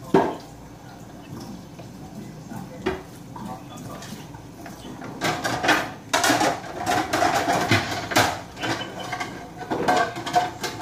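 A spatula scraping and clattering against a metal wok as sauce is stirred, with a sharp knock at the very start and dense, repeated clatter from about five seconds in.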